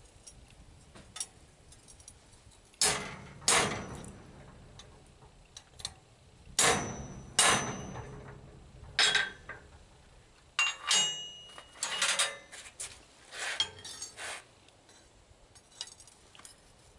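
Hammer blows on steel at an anvil, cutting partway through a bar of salvaged steel. About a dozen irregularly spaced strikes, several with a short metallic ring after them.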